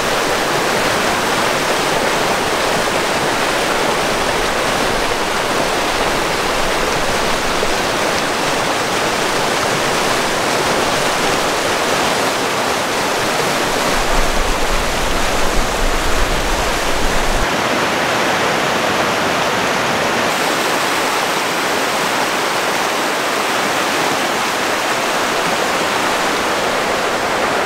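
Mountain river rushing steadily over rocks, a dense continuous hiss of water. About halfway through, a low rumble joins it for a few seconds.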